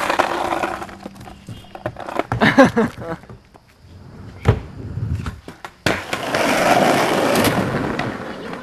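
Skateboard wheels rolling on rough asphalt and the sharp clacks and knocks of the board popping and landing, in several short cut-together clips. A steady rolling noise starts abruptly about six seconds in.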